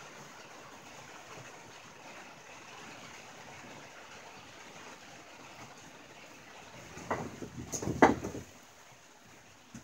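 Steady rain on a tin roof, an even hiss. About seven seconds in comes a brief cluster of loud, sharp knocks and clatters lasting about a second and a half, the loudest thing here, with one faint click near the end.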